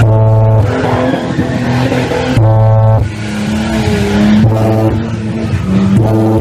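Car sound system playing bass-heavy music at competition volume. A deep, steady bass note alternates every second or so with harsher, noisier passages.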